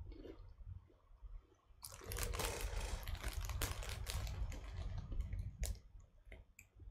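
Crisp packet crinkling as a hand rummages inside it: a dense crackle starting about two seconds in and lasting about three seconds, then a few scattered rustles and clicks.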